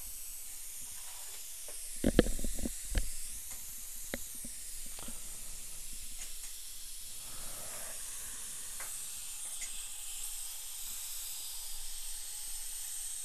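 High-speed dental handpiece with a flame-tip diamond bur cutting through the porcelain of an old porcelain-fused-to-metal crown under water spray: a steady high hiss and whine that wavers slightly, with suction hissing along with it. A few knocks come about two to three seconds in.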